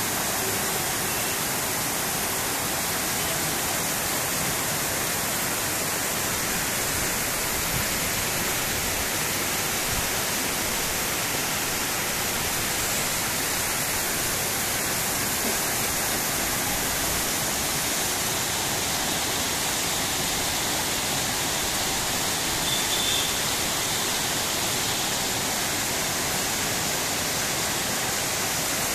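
Heavy rain falling steadily, a constant dense hiss.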